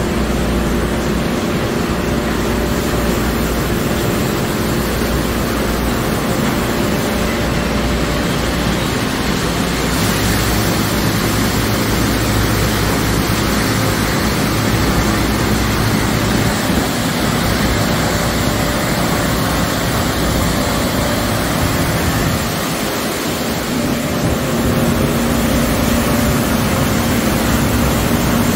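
Automatic car wash tunnel equipment running: a steady rushing noise over a low machine hum, changing character about ten seconds in and dipping briefly near the end.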